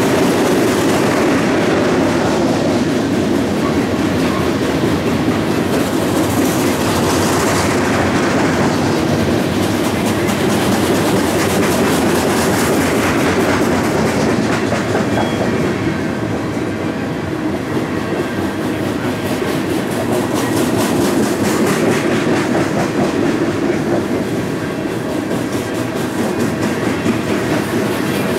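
Coal hopper cars of a freight train rolling past at close range: a steady rumble of wheels on rail with rapid, continuous clicking.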